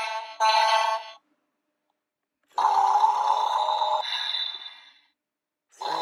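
Electronic sound effects in three bursts separated by silent gaps; the first burst is a ringing, beep-like tone.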